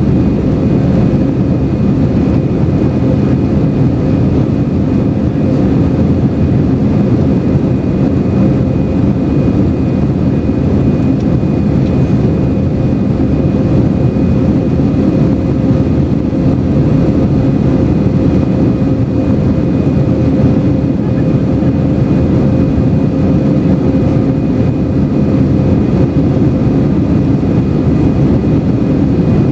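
Steady drone inside the cabin of an Airbus A321-200 airliner, its jet engines running at a constant setting. A deep rushing noise is topped by a faint steady hum, and the level does not change.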